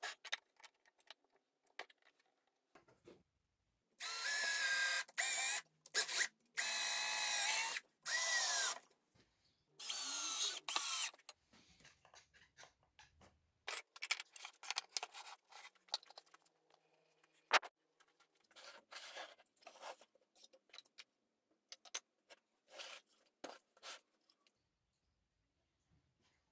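Cordless drill-driver run in several short bursts of one to two seconds, its motor whine wavering in pitch as it works into wood. After that come scattered light knocks and rubs of wood and tools being handled.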